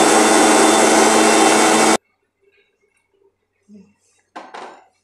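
Electric mixer grinder (mixie) running loud and steady as it grinds soaked almonds with milk, cutting off abruptly about two seconds in. Near the end a kadai is set down on the gas stove's burner grate with a short clatter.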